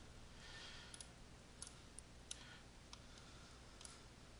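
Faint, scattered computer mouse clicks, about six of them, over near-silent room tone.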